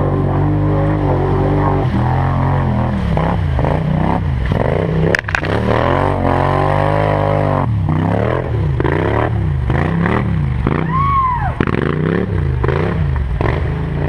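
4x4 ATV engine running under a changing throttle, its revs rising and falling again and again. There is a sharp knock about five seconds in.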